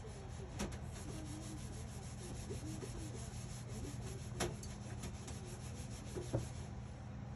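Faint rubbing and handling noise close to the microphone, with three light clicks, over a steady low hum.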